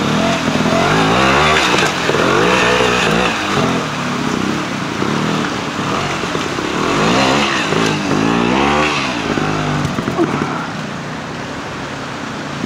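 Francis-Barnett two-stroke single-cylinder trials motorcycle revving up and down in repeated surges as it climbs over rocks, with rushing stream water beneath. The engine eases off toward the end.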